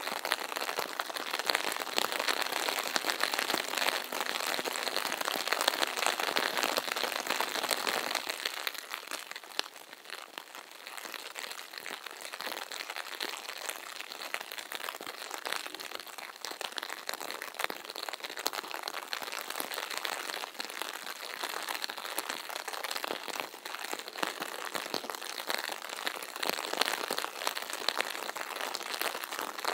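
Steady rain pattering on a surface, a dense crackle of drops, easing briefly about ten seconds in.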